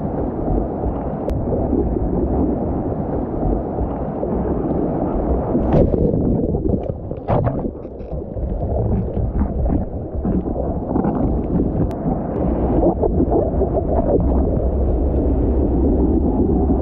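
Breaking whitewater and wind rushing over a surfboard-mounted action camera: a loud, muffled churning noise, with short splashes of spray hitting the camera in the middle stretch.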